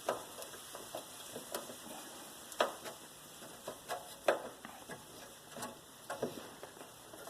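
Scattered sharp metallic clicks and taps, about a dozen at irregular spacing, from a ratcheting wrench being worked on the mounting bolts of an air conditioner's sealed unit.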